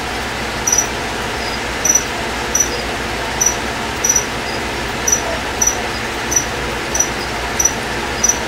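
Short high-pitched chirps repeating about every two-thirds of a second over a steady hiss and low hum.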